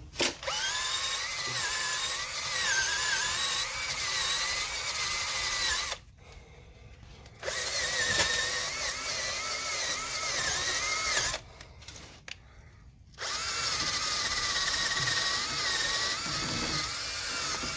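A handheld power tool run in three bursts of several seconds each, cleaning rust off the threads of a sway bar end link stud; its whine wavers in pitch as it bears on the threads.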